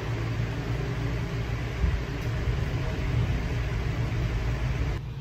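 Steady low mechanical hum with an even hiss over it, like a motor running in the background; it thins and drops slightly in level near the end.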